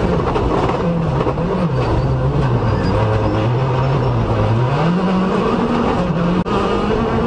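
Hyundai i20 World Rally Car's 1.6-litre turbocharged four-cylinder engine heard from inside the cabin on a gravel stage, with gravel and road noise under it. The engine pitch dips and rises, sinks lower for a few seconds in the middle, then climbs again. There is a momentary dropout in the sound near the end.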